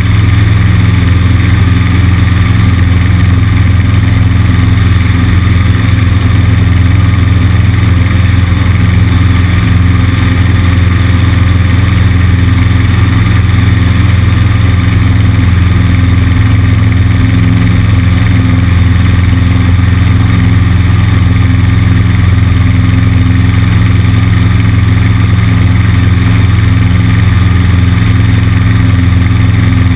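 Cessna 150's four-cylinder Continental O-200 engine and propeller droning steadily at constant power, with airflow noise over the wing-mounted microphone.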